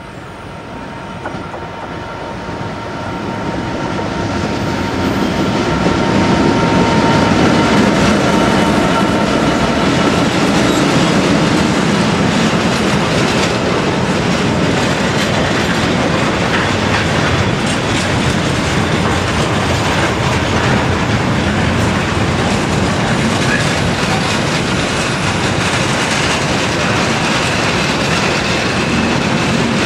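A train approaching and passing close by, growing louder over the first six seconds. It then holds a long, steady run of wheels clattering over the rail joints as the train goes by.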